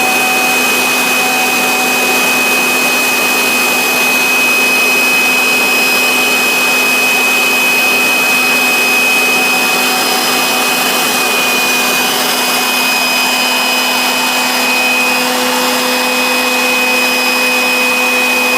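High-speed spindle of a PCB engraving CNC router running steadily with a constant high whine over a steady rushing noise, as it engraves tracks in a circuit board.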